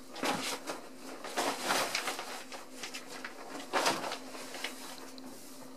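Ragdoll kittens scrabbling in a bathtub and pawing at the shower curtain: scratchy rustles in several short spells, the strongest about a second and a half in and just under four seconds in.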